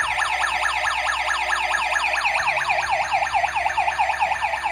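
Plug-in household gas leak detector sounding its electronic alarm, a loud siren of fast falling sweeps repeating several times a second. It has been set off by lighter gas released at its sensor: the sign that it has detected a gas leak.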